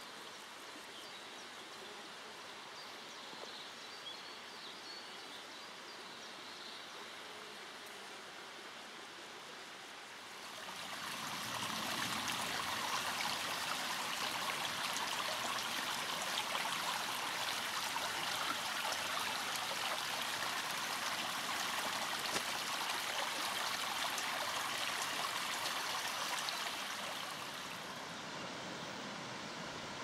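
A small woodland stream babbling over rocks. The rushing swells markedly about ten seconds in and eases back a little near the end.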